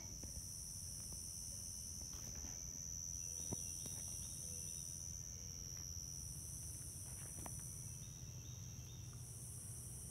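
Insect chorus: a steady high-pitched trill with a higher buzz that swells and fades about every three seconds, over a low steady rumble. A single faint click comes about three and a half seconds in.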